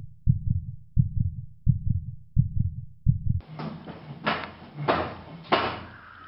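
Heartbeat sound effect: steady low thumps, about three a second. About three and a half seconds in, it gives way to a louder noisy rumble with three sharp hits.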